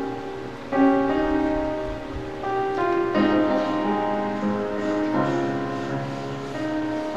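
Offertory music played on a keyboard instrument: slow chords, each held for a second or two before the next.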